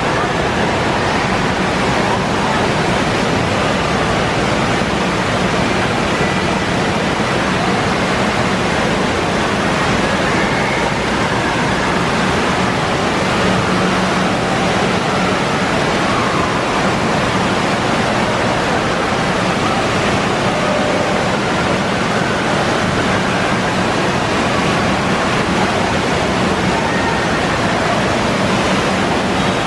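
Steady rush of spraying and falling water from the fountains and water features of an indoor water park play structure.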